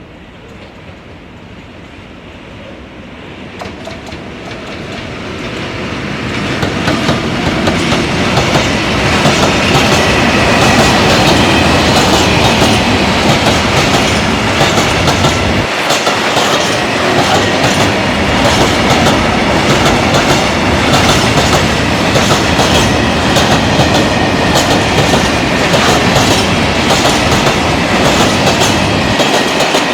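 Loaded freight train of Eas open wagons carrying iron ore rolling past with a steady clickety-clack of wheels over rail joints. The rumble builds over the first eight seconds or so, then holds loud and steady, with a faint high wheel squeal.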